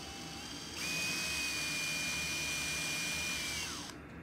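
Cordless drill-driver driving a screw into a tubular metal cart frame: the motor starts about a second in and runs with a steady high whine for about three seconds, then falls in pitch as it spins down.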